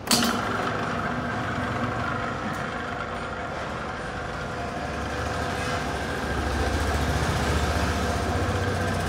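Commercial planetary food mixer starting up at the very beginning, then running steadily at its low speed setting with a motor-and-gearbox hum and whine.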